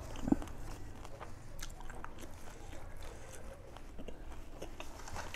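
A person chewing and biting food close to the microphone: wet mouth sounds with many small sharp clicks, one louder click about a third of a second in.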